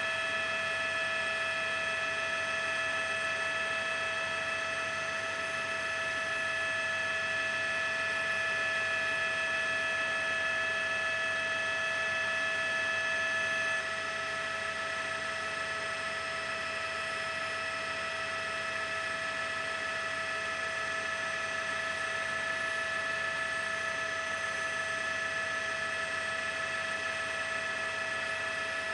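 Steady whine of a helicopter's turbine engine: several high, even tones over a constant hiss. It gets slightly quieter at a cut about fourteen seconds in.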